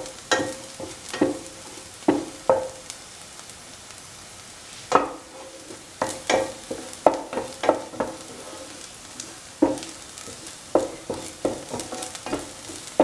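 Shallot pieces sizzling in oil in a pan while being stirred, the stirring utensil scraping and knocking on the pan in irregular strokes that ring briefly. There is a lull of about two seconds near the middle, then the stirring picks up again.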